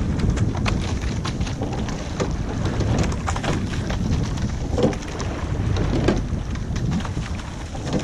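Wind rumbling on the microphone and water rushing along an eight-oared rowing shell under way, with scattered clicks and knocks from the oars and oarlocks.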